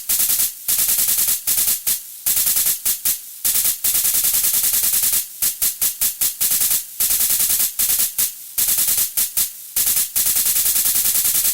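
Electronic noise music: harsh hiss-like noise bursts chopped into rapid-fire stuttering runs, like machine-gun fire, broken by short dips and gaps.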